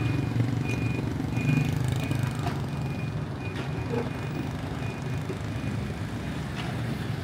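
A vehicle engine running with a steady low hum, with short high beeps repeating about once a second that fade over the first few seconds.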